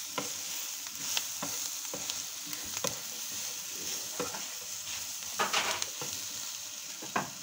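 Eggplant and green chilli pieces sizzling in butter in a pan while a spatula stirs them. Short scrapes and clicks of the spatula against the pan sound over the steady sizzle, with a louder burst of scraping about two-thirds of the way through.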